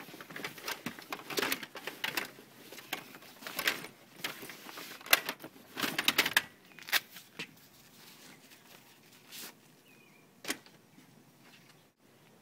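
Footsteps crunching on dry ground, irregular, thinning out after about six seconds to a few single steps or clicks, with a couple of faint bird chirps near the end.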